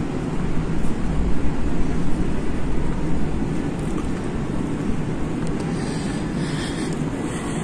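Steady low rumbling background noise inside a large store, picked up by a handheld phone being carried along, a little louder for a couple of seconds about a second in.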